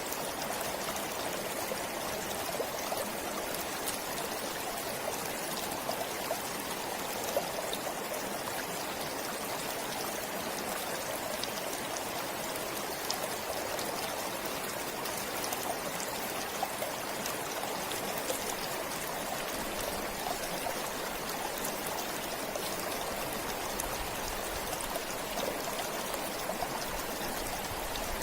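Flowing forest stream: a continuous, steady babble of running water with small scattered splashes.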